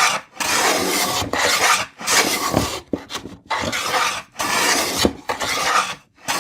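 Shoulder plane taking repeated shaving strokes across a wooden tenon cheek, about one hissing cut a second with short breaks between, trimming the tenon toward 1/4 inch thickness.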